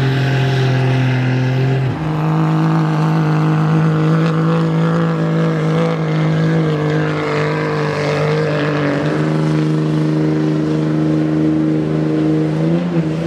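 Diesel pickup truck engine at full throttle, pulling a weight-transfer sled; its drone steps up sharply in pitch about two seconds in and then holds steady.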